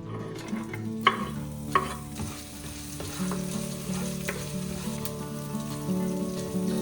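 Food sizzling and frying in a pan while being stirred, with two sharp knocks a little after a second in. Soft background music plays throughout.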